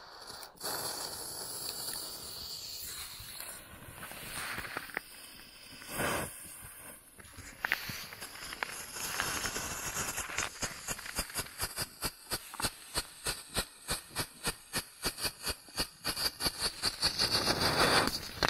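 Small ground strobe firework (Strobáč) going off: first a steady hiss as the fuse and charge burn, with a dull thump about six seconds in, then rapid sharp pops about four a second, growing louder toward the end before stopping suddenly.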